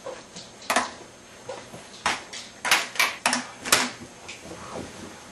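Metal crutches knocking and clattering as someone moves about on them: about six sharp clacks, bunched together around the middle.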